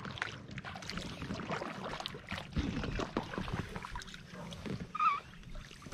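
Kayak paddle strokes in the water: the blades dipping and splashing, with water dripping and trickling off them.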